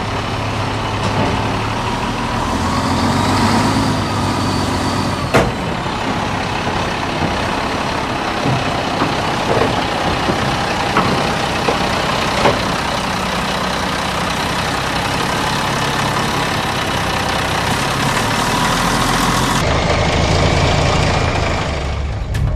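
Heavy-equipment diesel engine running steadily, with a few sharp metal clanks. The machine is most likely the one pushing a dead excavator.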